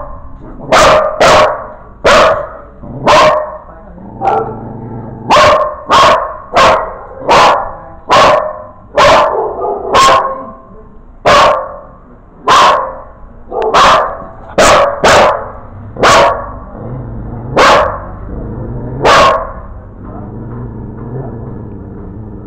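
A dog barking over and over: about twenty single, sharp barks at roughly one a second, unevenly spaced. The barks stop a few seconds before the end.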